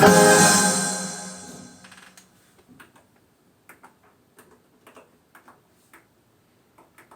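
Keyboard backing track and piano ending on a final chord that fades away over about two seconds, followed by a series of light clicks, roughly one or two a second.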